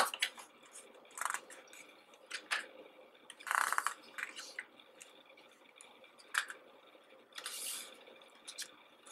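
Pages of a CD photo book being turned by hand: a string of short paper rustles and flaps, with two longer swishes about three and a half and seven and a half seconds in.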